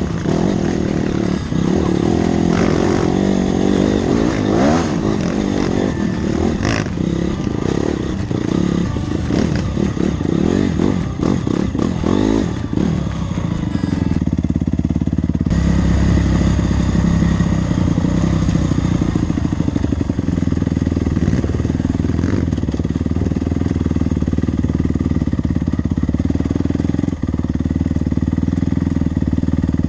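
Dirt bike engine revving up and down under the rider's throttle, with clattering knocks from riding over rough ground. About halfway through the clattering stops and the engine runs at a steadier pitch and sounds duller.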